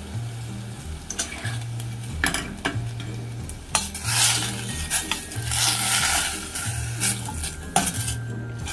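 Wooden spoon stirring dried fruit in a little simmering water in a stainless-steel saucepan: wet scraping and squelching, with the spoon knocking on the pan now and then. The stirring is busiest from about four to six seconds in.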